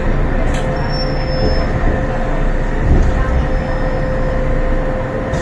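An MTR M-Train electric multiple unit, heard from inside the car, slowing as it pulls into a station. There is steady running noise with a steady hum, and a thin high squeal about a second in.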